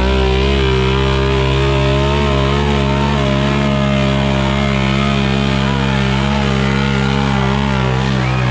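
ATV engine held at full throttle, running at a steady high pitch as the quad claws up a steep dirt hill climb with its wheels spinning.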